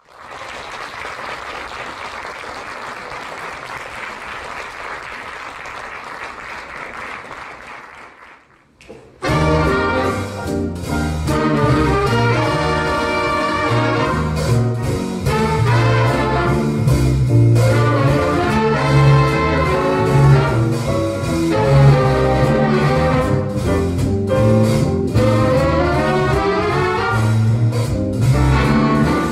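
A steady wash of audience applause that dies away about eight seconds in. After a short pause, a big band of saxophones, trumpets and drum kit comes in loud with a jazz piece.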